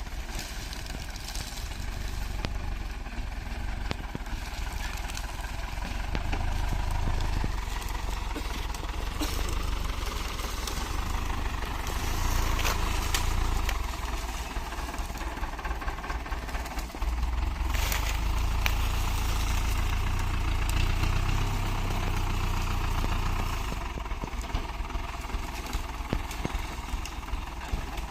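Off-road 4x4's engine running, louder through the middle and settling lower near the end.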